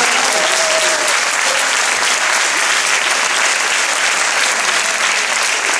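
Audience applauding, a dense, steady round of clapping in reaction to a comedian's joke.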